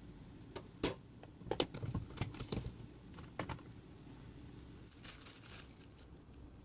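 A run of light clicks and taps of a spoon against a dish while gochugaru (Korean chili powder) is added to a pot of stew, followed by a brief rustle about five seconds in.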